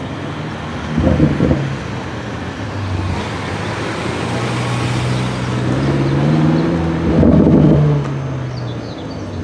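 BMW M5 F90 Competition's twin-turbo V8 accelerating away, its pitch rising as it revs. Two louder surges come about a second in and again near the end.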